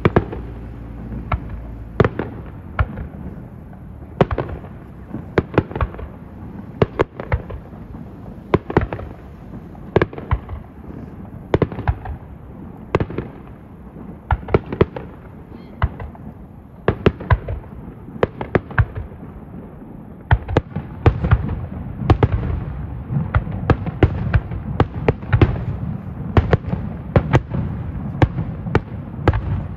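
Aerial firework shells bursting in a long, irregular series of sharp bangs, a few a second, growing denser over a continuous low rumble in the last third.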